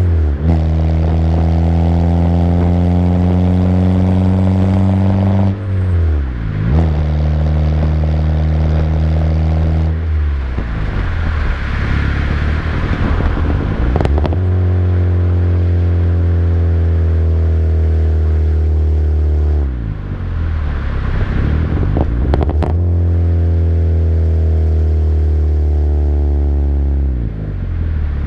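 Peugeot 206 exhaust heard close to its large aftermarket tailpipe while driving: a deep drone that climbs slowly in pitch as the car accelerates through each gear. The pitch drops sharply four times at the gear changes, with a rushing hiss and a couple of sharp clicks in between.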